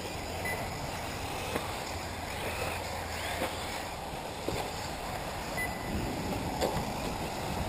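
1/8-scale electric RC off-road buggies racing: faint electric-motor whine rising and falling over a steady bed of tyre and track noise. A few sharp knocks come as cars land or strike the course.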